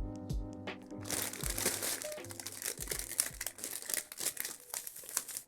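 Plastic packaging crinkling as it is handled, starting about a second in, over background music with a steady beat.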